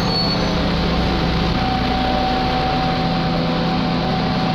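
A standing train's engine idling steadily: a low hum with a thin, steady higher whine over it.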